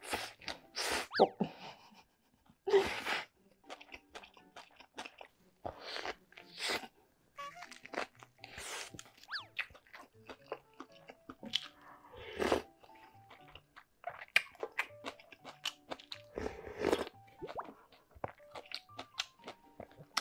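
Close-miked eating: bites and chewing of seaweed-wrapped gimbap with crunching and wet mouth sounds, and mouthfuls of spicy ramen noodles from a ladle, in irregular bursts over light background music.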